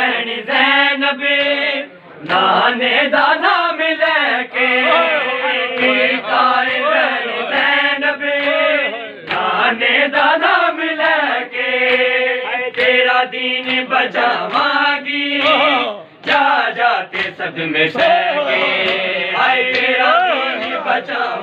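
Men's voices chanting a Punjabi noha, a Shia mourning lament, in a loud continuous sung recitation with brief breaks for breath.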